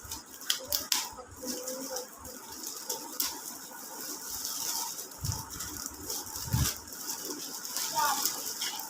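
Keyboard packaging being handled and opened: scattered rustles, scrapes and small clicks of cardboard and plastic.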